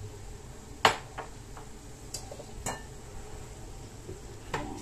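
Kitchenware clinking: one sharp clink about a second in, then several lighter clicks and taps.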